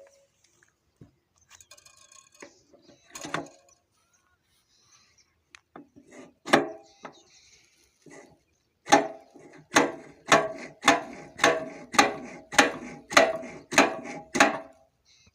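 Hammer blows driving a new cylinder sleeve into a diesel engine block: a couple of single knocks, then a steady run of about ten sharp strikes, roughly two a second.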